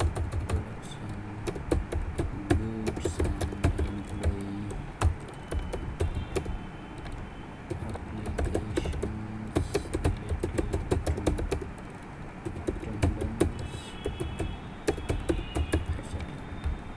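Typing on a computer keyboard: quick runs of irregular keystroke clicks with a couple of brief pauses.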